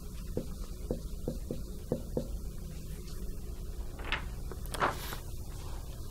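Dry-erase marker tapping and scratching on a whiteboard in a quick series of short strokes, followed by two louder scuffing sounds about four and five seconds in, over a steady low room hum.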